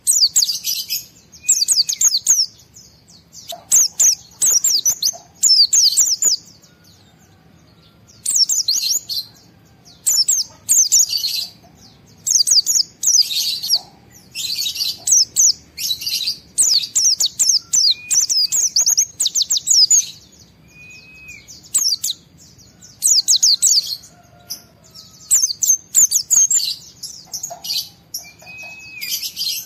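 White-eye (pleci) singing in excited full song: fast, high, twittering phrases a second or two long, repeated with short pauses. Now and then a short, slurred whistle comes in between.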